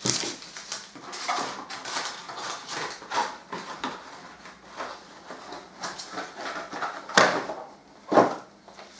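Small cardboard boxes and packets being taken out of a pantry cupboard and set down: a run of rustles and light knocks, with two louder knocks near the end.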